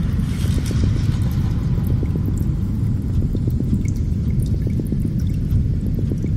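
Steady low rumble of wind buffeting the microphone, with faint scattered clicks.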